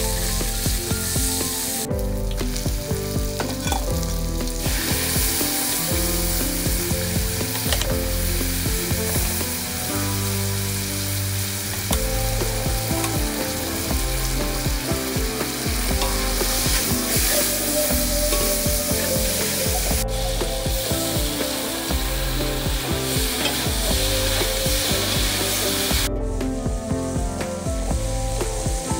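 Smoked pork, shallots, garlic, spring onion and greens sizzling as they stir-fry in a large metal wok, turned with a spatula. The sizzle is steady, with a few abrupt breaks where the sound cuts.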